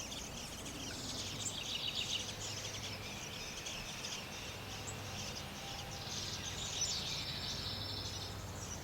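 Outdoor natural ambience: continuous high-pitched chirping and fast trilling from small wild creatures, over a faint low hum, cutting off abruptly at the end.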